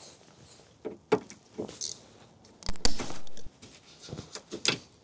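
Scattered clicks and clinks of a hand wrench with a 3D-printed PLA socket being fitted onto a car bolt and worked, the loudest stretch a short rattle about three seconds in.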